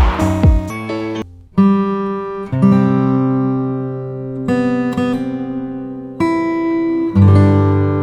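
Background music: acoustic guitar strumming chords that are left to ring, struck again about every second or so. A beat with drum hits stops within the first second.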